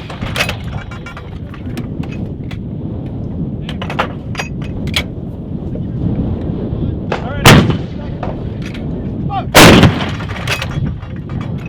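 Artillery guns firing: two loud blasts about two seconds apart in the second half, with fainter booms and cracks between them over a steady low rumble.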